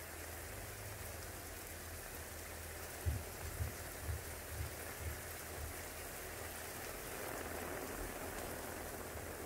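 Steady rain, an even hiss, with a few soft low thumps about three to six seconds in.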